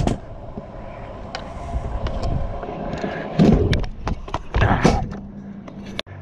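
Kick scooter wheels rolling over a concrete skatepark, with two louder knocks from the scooter meeting the ground or a ramp, about three and a half and about five seconds in.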